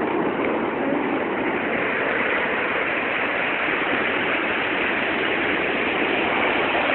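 Ocean surf breaking and washing up a sandy beach: a steady, even rushing of foaming water.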